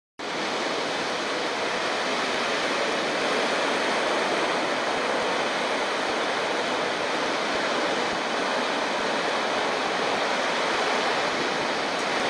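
A steady, even rushing noise like water pouring, starting abruptly and holding level without change.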